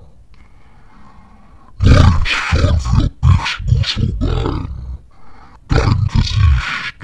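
An extremely deep, growling male voice recites German verse in two phrases, the first starting about two seconds in and the second near the end. The voice is slowed down, amplified and given a short echo.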